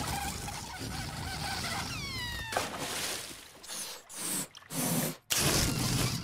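Cartoon sound effects: a short falling whistle-like glide, then a string of choppy hissing bursts broken by brief gaps.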